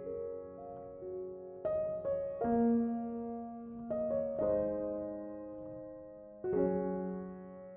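Background piano music: slow, gentle chords struck every second or so, each note ringing and fading away.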